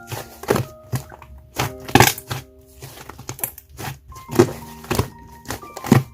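Slime, butter slime mixed with clear slime, being squished and stretched by hand, giving irregular sticky clicks and pops, the loudest about two seconds in and near the end. Soft background music with held bell-like notes plays beneath.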